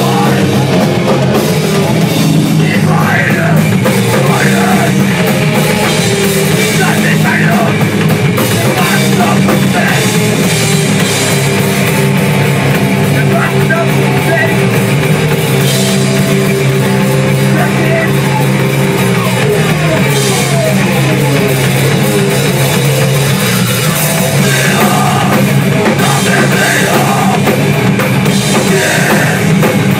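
Hardcore punk band playing live: electric guitars and a drum kit, loud and unbroken.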